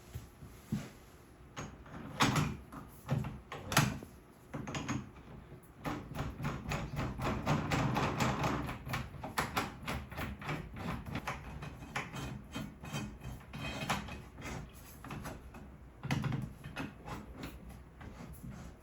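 Clicks, knocks and rattles of doorknob hardware being handled and fitted at a door, with a few sharp knocks early on and a dense run of clicking in the middle.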